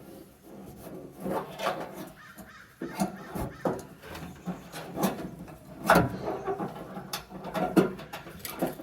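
Irregular scraping and rubbing with scattered knocks and clicks, from hand work on a fuel sender unit as it is worked loose and lifted out. The sharpest knock comes about six seconds in.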